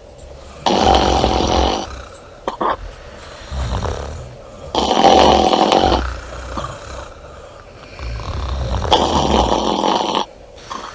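Women snoring in their sleep: three loud snores, each about a second long and about four seconds apart, with a quieter low rumbling between them.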